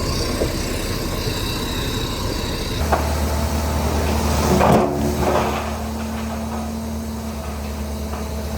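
Heavy earthmoving machinery running, with a sharp knock about three seconds in, after which the engine settles into a steady low hum. A louder burst of clanking and knocking comes around five seconds in.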